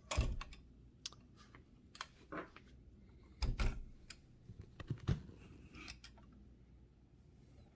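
Irregular mechanical clacks and knocks from a 1925 Mignon 4 index typewriter being handled and repositioned. The loudest clack comes right at the start, and there are dull thumps about three and a half and five seconds in.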